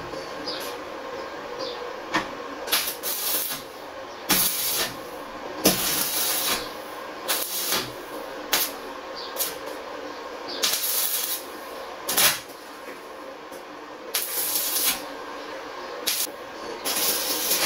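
Electric arc welder laying a series of short tack welds: about fifteen crackling, hissing bursts, each lasting well under a second to about a second, at irregular gaps, over a steady faint hum.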